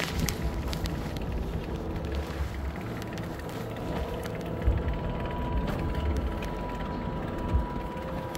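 Alpine coaster cart moving along its steel rail track: a steady mechanical rumble and hum, with two sharp clicks, one about halfway through and one near the end.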